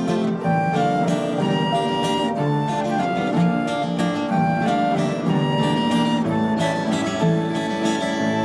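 Instrumental music: acoustic guitar strumming, with a melody in held notes above it.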